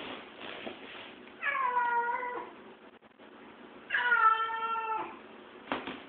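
Kitten meowing twice, each meow about a second long, starting higher and settling to a steady pitch. A brief knock near the end.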